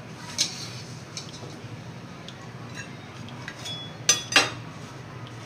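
Cutlery clinking against a plate: a few light clicks, then two sharp clinks close together near the end.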